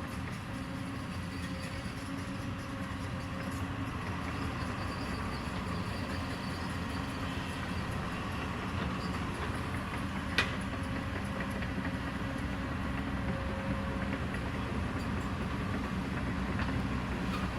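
Excavator's diesel engine running at a steady pitch, with one sharp knock about ten seconds in.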